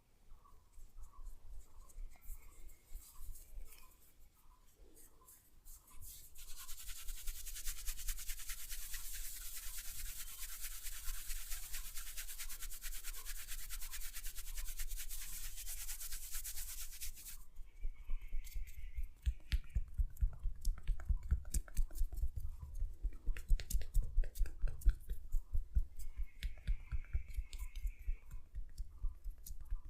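Close rubbing and scratching strokes. About 6 s in they become a dense, very fast scratching that cuts off sharply around 17 s, and rapid light tapping follows.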